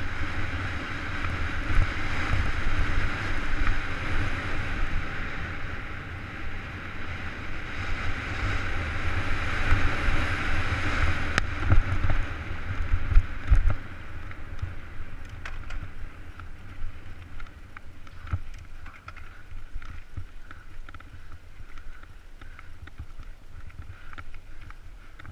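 Wind buffeting the camera microphone and knobby 29er mountain-bike tyres rolling fast over a dirt trail, a loud rumble with a steady hiss. After about 13 seconds it eases to quieter tyre noise with scattered clicks and rattles as the bike slows over rockier ground.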